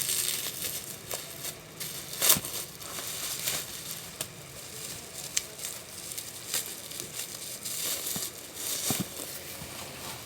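Packaging crinkling and rustling as a parcel is opened, with scattered sharp clicks and snaps; the loudest snap comes about two seconds in.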